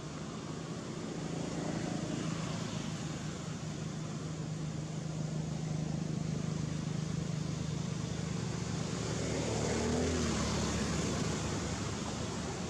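An engine running steadily with a low hum, likely a passing or nearby motor vehicle. About ten seconds in, its pitch briefly shifts and it grows a little louder.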